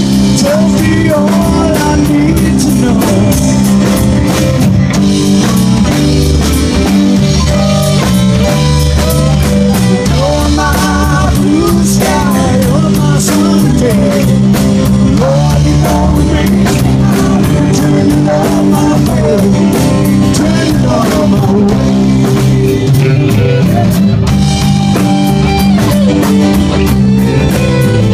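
Rock band playing live: electric guitar, bass and drum kit with a singing voice, loud and unbroken.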